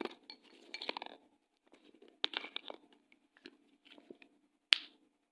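Pen writing on paper: short scratchy strokes in bursts with brief pauses between them, and one sharp tap about three-quarters of the way through.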